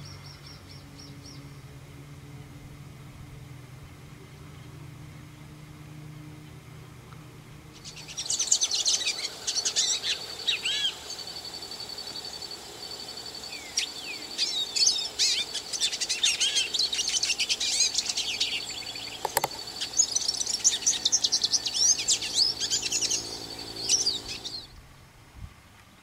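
Many birds chirping and calling together, a dense mix of quick chirps and whistles with a steady high trill running through the middle, starting about a third of the way in and cutting off abruptly near the end. Before the birds there is only a low steady hum, and there is one sharp click during the calling.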